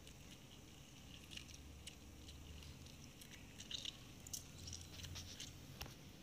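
Faint fizzing and crackling of baking soda reacting with lemon juice poured over flour, a scatter of tiny crackles that grows busier after about a second.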